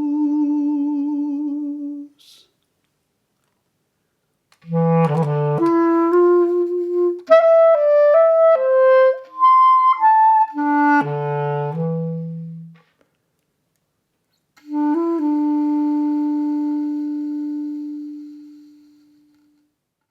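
Solo clarinet closing out a folk song. A held note ends about two seconds in; after a pause comes a short melodic phrase, and after a second pause a long held low note that slowly fades away.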